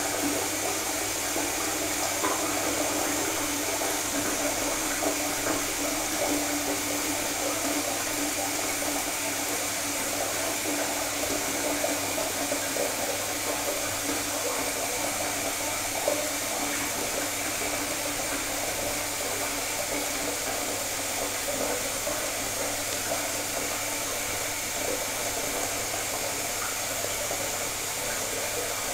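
Synthetic shaving brush working shaving lather over a stubbled face, a steady wet swishing and crackling of foam, to build lather for a second shaving pass.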